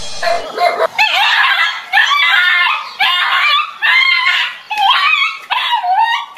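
Repeated high-pitched screaming cries in short bursts, one after another, each bending up and down in pitch, with no low growl or bark beneath them.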